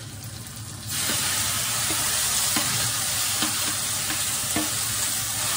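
Chopped carrots, capsicum and tomatoes tipped into a kadhai of hot oil and onions start sizzling loudly about a second in, the hiss holding steady as they are stirred, with a few light knocks of the utensil against the pan.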